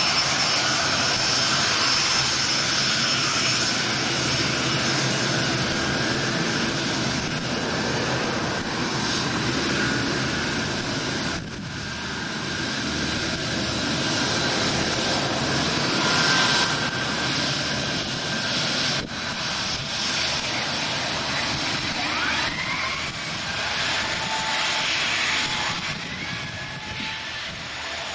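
Boeing 747 freighter's four jet engines running at taxi power as it rolls past: a steady rushing roar with a high whine on top.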